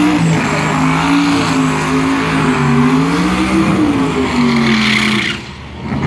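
Drag-racing car engine held at high revs during a tyre-smoking burnout, its pitch wavering up and down. It cuts off abruptly a little past five seconds in.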